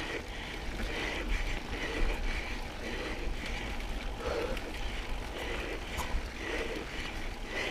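Pivot SwitchBlade 29 mountain bike rolling along a dirt trail: steady rush of wind on the microphone and tyre rumble, with faint clicks and rattles from the bike.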